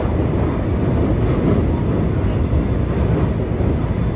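Train running across a bridge, heard from inside the carriage: a steady low rumble of wheels and running gear.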